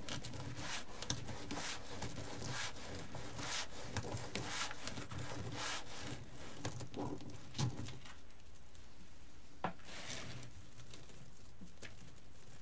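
Deco mesh rustling and scratching as it is pulled off its roll and scrunched between the hands, a run of rough scraping strokes that thin out in the second half, with a sharper click or two.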